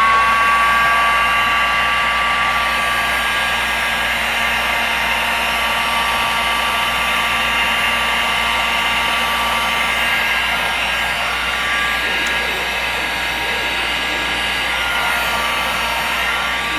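Handheld electric heat gun running, shrinking heat-shrink tubing over a soldered wire joint: a steady fan whine over the rush of hot air, its pitch rising and settling within the first second.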